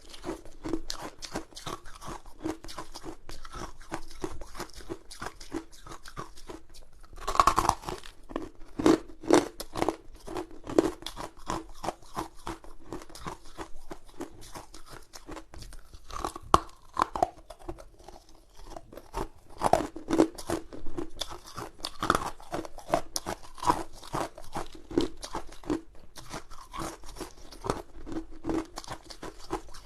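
Hard ice being bitten and chewed right at the microphone: a steady run of sharp crunching and cracking, with a loud crunching bite about seven seconds in.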